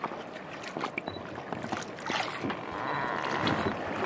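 Sea water lapping and sloshing against the hull of a small outrigger boat, with scattered small knocks and splashes. A steadier rushing wash comes in about three seconds in.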